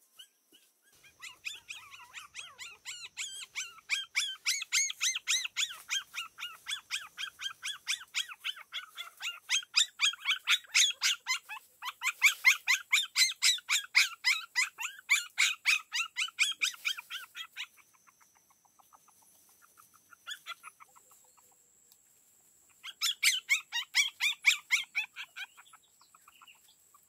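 Newborn puppies crying in rapid high-pitched squeals, several a second, in one long run and then a shorter run near the end after a pause of a few seconds.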